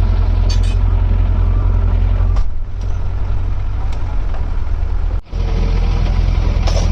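Rebuilt six-cylinder truck diesel engine running with a steady deep rumble, briefly dropping out about five seconds in.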